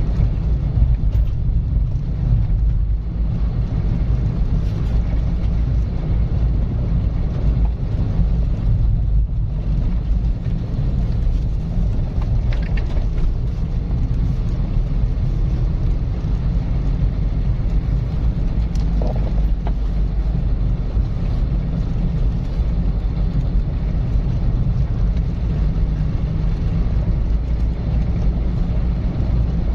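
A car driving along at a steady speed: a continuous, even low rumble of engine and tyre noise.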